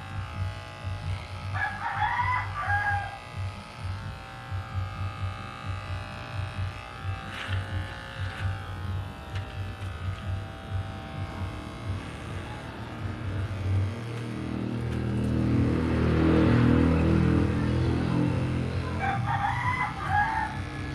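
Electric hair clippers buzzing with a steady low hum, while a rooster crows twice, once near the start and once near the end. A deeper drone swells up through the second half and then eases off.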